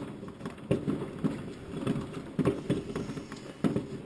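Fireworks going off around the neighbourhood: an irregular run of muffled bangs and pops, several a second, overlapping one another.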